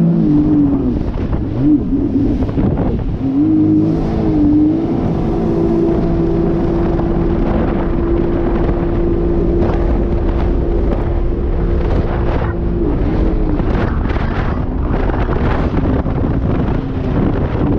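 Sea-Doo personal watercraft engine running under way. Its pitch wavers with throttle changes over the first few seconds, holds steady for about seven seconds, then eases off and picks up again near the end. Wind on the microphone and the hull slapping through choppy water run underneath.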